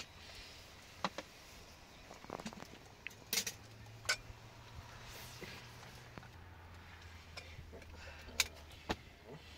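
Tea glasses clinking against a plastic tray and teapot as tea is poured and served, a handful of sharp separate clinks over a low steady hum.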